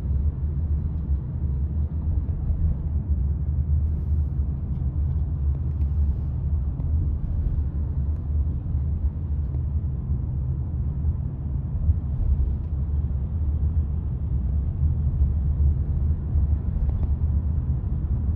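Steady low rumble of road and tyre noise inside the cabin of a moving robotaxi.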